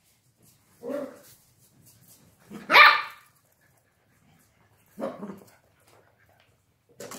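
Miniature dachshund puppy barking three times during play, the middle bark the loudest.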